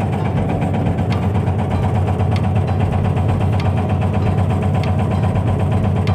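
Backhoe's diesel engine running steadily, with a fast even rattle over the hum and a sharper tick about every second and a quarter.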